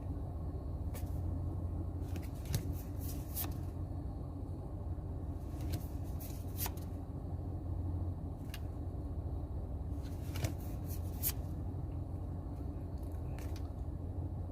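Pokémon trading cards being flipped through by hand, with scattered soft flicks and slides of card stock, over a steady low hum.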